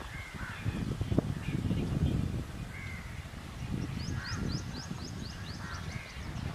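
Crows cawing several times, with a quick run of high, rising chirps from a smaller bird between about four and six seconds in, over a steady low rumble.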